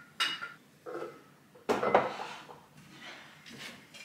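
Glass clinks and knocks as a glass vase is taken out of a kitchen wall cabinet and the cabinet door is shut: a few separate knocks, the loudest just under two seconds in.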